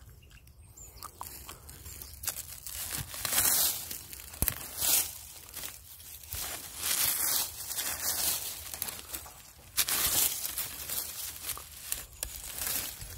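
Dry leaf litter, pine needles and twigs crackling and rustling in irregular bursts as the ground is cleared and dug with a small hand tool.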